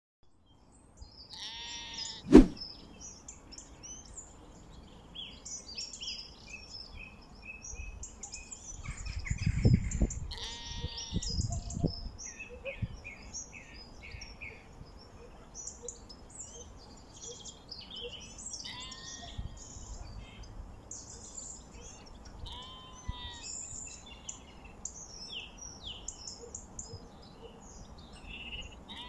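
Small birds chirping and singing throughout, with sheep bleating now and then as the flock grazes. A single sharp knock sounds about two seconds in, and there is a low rumble around ten seconds in.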